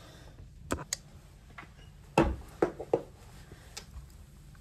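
A few sharp clicks and soft knocks, the loudest a little over two seconds in, from a light switch being flipped off and things being handled around a tray of watches.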